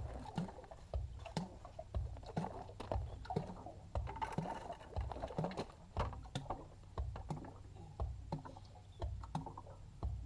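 Hydraulic oil glugging and splashing as it drains from a Takeuchi TB180FR excavator into a 5-gallon bucket: an uneven run of low gulps and splatters over a steady low hum.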